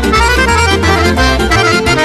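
Piano accordion playing a sârbă, a Romanian folk dance tune: quick runs of melody notes over a steady bass.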